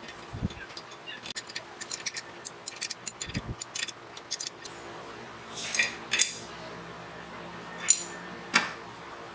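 Steel wire rope being handled and fastened at a metal winch drum: quick light clicking and clinking, with a few louder metallic clinks in the second half.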